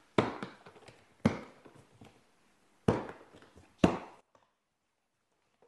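Latches of a large black plastic hard-shell equipment case being snapped open one after another: four sharp snaps spread over about four seconds, with lighter clicks between them.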